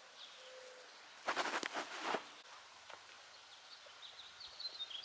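Quiet outdoor ambience with birds chirping faintly near the end. A little over a second in comes a brief noisy rustle or clatter lasting about a second, which is the loudest thing heard.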